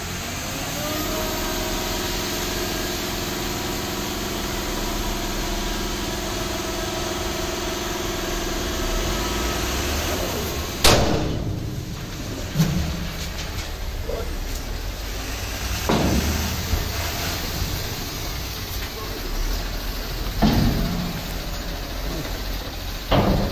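Tata tipper truck's diesel engine, its revs rising just after the start and then held steady to drive the hydraulic tipping of the dump body while it unloads gravel. About eleven seconds in a sharp knock breaks this off, and the engine runs on more roughly with a few thuds.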